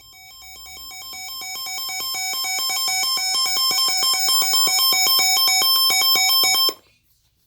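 Electronic alert tone between repeats of a broadcast marine warning: a buzzy, rapidly warbling beep that alternates between pitches like a ringtone. It swells in over the first few seconds, holds, then cuts off abruptly near the end.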